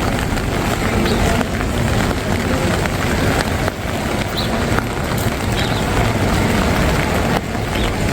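Steady rain falling on wet pavement: an even hiss with a low rumble underneath.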